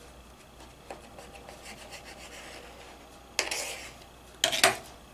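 Kitchen knife sawing through a sheet of thawed pizza dough on a plate, with two louder rasping scrapes of the blade near the end.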